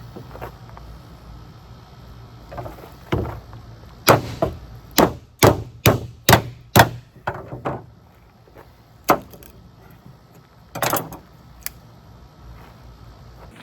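A series of sharp wooden knocks. The strongest run is about eight, roughly two a second, in the middle, with a few single knocks before and after.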